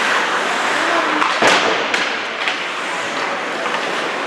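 Ice hockey play: a steady scraping hiss of skates on ice and arena noise, with a sharp knock about a second and a half in and two lighter clicks after it.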